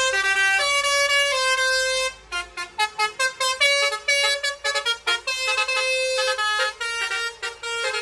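Basuri multi-trumpet 'telolet' air horn on a tour coach playing a tune. It holds notes for about two seconds, then plays a quick run of short staccato notes.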